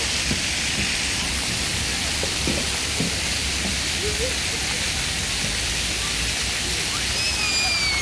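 Jets of a dry-deck plaza fountain spraying up and splashing down onto wet paving: a steady hiss of falling water.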